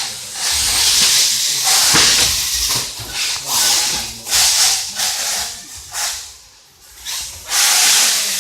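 Hissing surges of radio-controlled cars running on a dirt track, their tyres and thrown dirt coming and going in waves, with a brief lull near the end.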